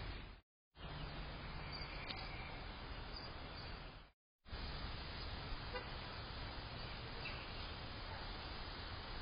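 Steady hiss of outdoor background noise through a Blink security camera's microphone, cut off twice by short dead-silent gaps where recorded clips are joined.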